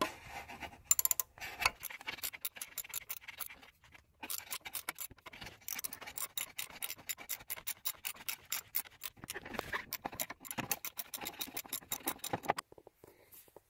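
Ratchet driving a Torx T30 bit on an extension, clicking rapidly and evenly as it backs out a bolt from the secondary air pump bracket. It pauses briefly about four seconds in and stops near the end.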